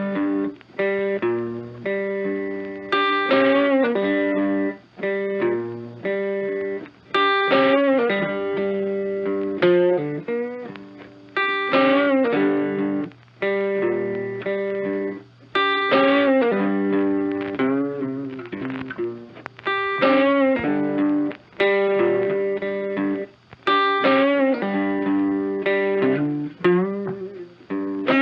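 Background music: guitar playing a repeating phrase of plucked notes with a slight distortion effect.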